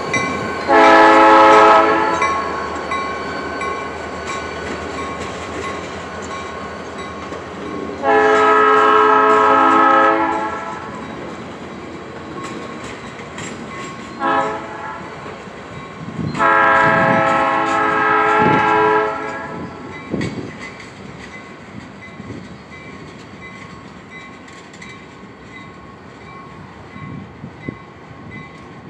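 Norfolk Southern diesel locomotive blowing its air horn in the grade-crossing signal (long, long, short, long) over the rumble of the engine and wheels on the rails. The train sound fades as the locomotive moves away.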